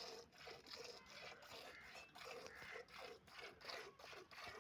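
Hand-milking: streams of milk squirting into a half-full aluminium pot in a quick, steady rhythm of strokes, about two to three a second.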